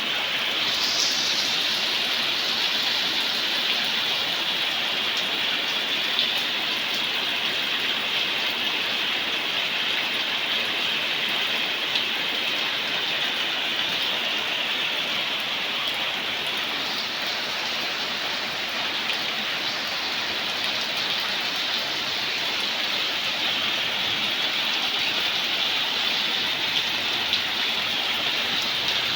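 Steady rain falling, an even hiss of drops with a few sharper drop ticks now and then.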